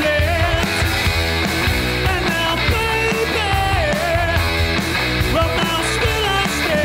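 Rock band playing a song live: electric guitar, bass guitar and drums together, with pitched lines that bend and slide over a steady, loud backing.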